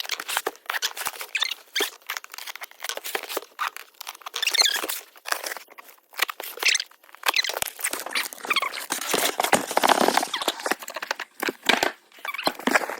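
Packaging rustling and crinkling while parts are handled, with many sharp clicks and small squeaks, busiest in the second half.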